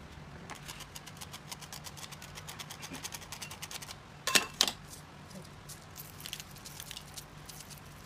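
Light clicking and rattling of metal kitchen utensils over a cake tin, mostly a metal sieve shaken and tapped to dust powder over the top. There is a quick run of clicks, then two loud knocks a little past the middle, then a few scattered clicks, over a low steady hum.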